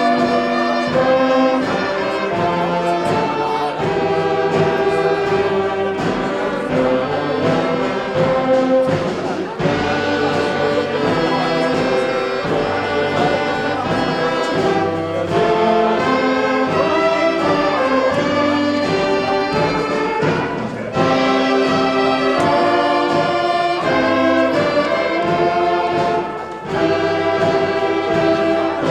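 Amateur wind band playing, brass to the fore, in held chords that change every second or so.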